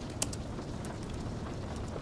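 Typing on a low-profile keyboard: a few irregular soft key clicks over a steady background hiss of light rain and fire ambience.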